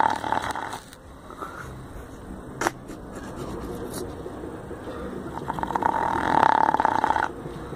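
Dog snoring: a long, fluttering, rattling snore right at the start and another about five to seven seconds in, with quieter breathing between. A single sharp click comes in between.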